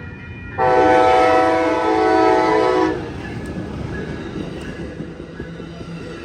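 Siemens SC44 Charger locomotive's air horn sounding one long multi-note blast, starting about half a second in and lasting just over two seconds, followed by the rumble and clatter of the Amtrak passenger train rolling past.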